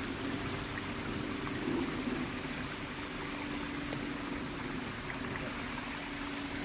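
Flowing creek water, a steady rushing wash.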